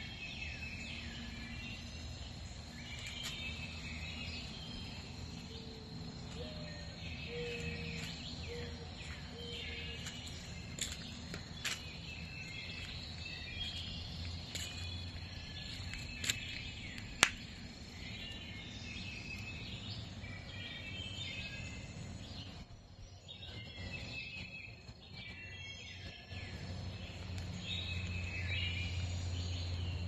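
Several songbirds chirping and singing over a steady, high insect drone, with a low hum underneath. A few sharp clicks come in about halfway through.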